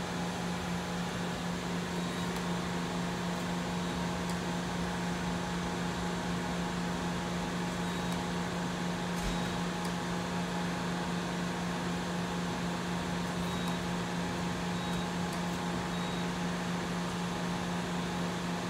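Okuma MacTurn 350-W CNC turning-milling center powered up and standing idle: a steady machine hum with a strong low drone.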